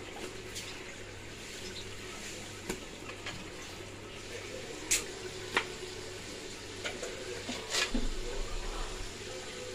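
Hot oil with onion paste and green chillies sizzling steadily in a metal pot, with a few sharp clicks of a steel spatula against the pot.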